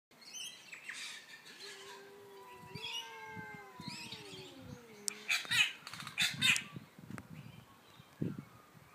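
Two domestic cats yowling at each other in a territorial standoff: long, wavering, drawn-out cries that slide down in pitch. A few loud, short noisy bursts come about halfway through.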